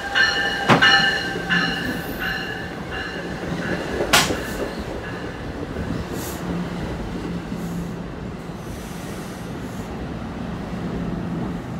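NJ Transit Multilevel push-pull train pulling into the station and sliding past close by. A ringing sounds about twice a second and dies away about three seconds in. A sharp loud burst follows about a second later, over the steady rumble and hum of the passing cars and wheels.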